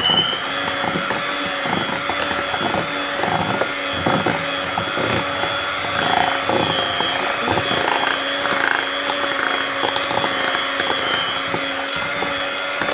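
Electric hand mixer running steadily at speed with a high whine, its beaters whipping butter and icing sugar into fluffy buttercream in a steel bowl. Irregular light clicks come through.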